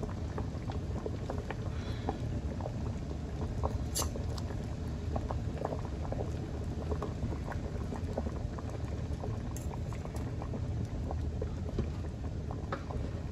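A large enamel stock pot of chicken and broth at a rolling boil: steady bubbling with many small irregular pops, and a couple of sharper clicks.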